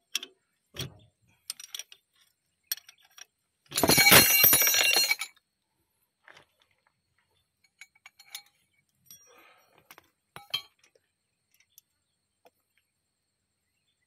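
Metal parts and tools clinking and clicking, with one loud metal clatter and ringing about four seconds in, lasting about a second and a half.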